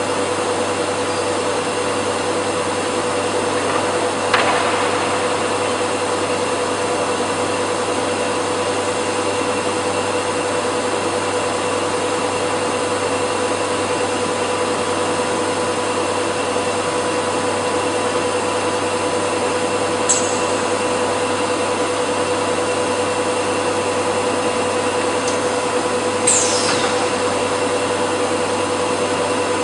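PTP CNC router running steadily while machining wood, a constant rush of noise with a steady whine. Brief sharp squeaks stand out about 4 s, 20 s and 26 s in.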